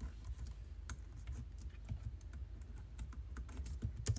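Typing on a computer keyboard: a run of irregular keystrokes at a steady pace, the loudest couple coming near the end.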